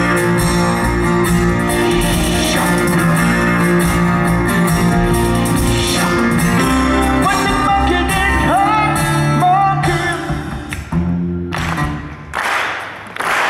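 Live rock band playing with guitar and singing, a gliding vocal line coming through in the middle. Near the end the band thins out and the level dips briefly before picking up again.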